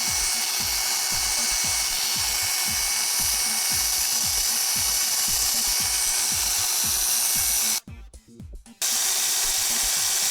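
Electric hair clipper running with a freshly sharpened blade fitted for a cutting test: a steady mechanical buzz with a fast, even pulsing underneath. It cuts off about eight seconds in and starts again about a second later.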